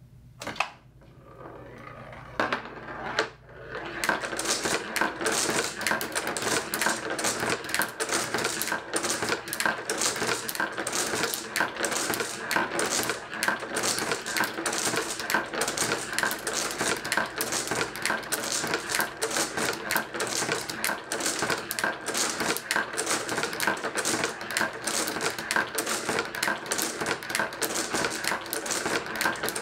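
Glass marbles rolling down plastic and wooden marble-run tracks and clicking against each other as they drop into place in columns between metal tubes. A few scattered clicks, then from about four seconds in a dense, steady clatter of many marbles.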